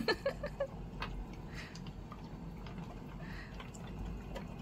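Dalmatian eating at its food bowl: a sharp click at the start, then a few smaller clicks and faint scattered clicking from its mouth and the bowl.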